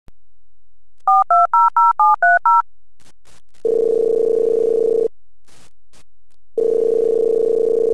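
Phone keypad tones as a number is dialled, about eight quick beeps, then the ringback tone ringing twice while the call waits to be answered.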